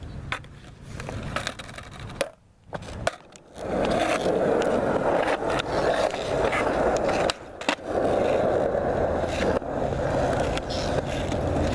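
Skateboard wheels rolling over an asphalt court, a steady grinding rumble from about four seconds in. Before it come scattered clacks of the board and a short quiet spell, and about halfway through the rolling breaks off briefly with sharp clacks.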